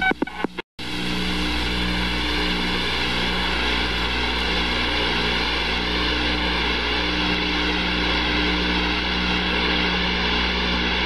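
Aircraft engines running on a carrier flight deck: a steady drone with a high whine. It cuts out for a split second under a second in, then runs on unchanged.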